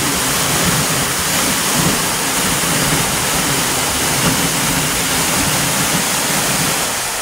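Man-made waterfall released into the gorge, with water pouring down in a loud, even rush that eases slightly near the end.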